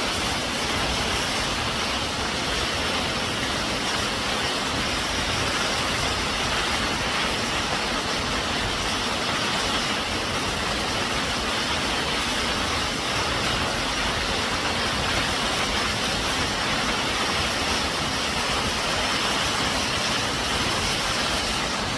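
Steady, unbroken rush of a waterfall, falling water making an even roar across all pitches.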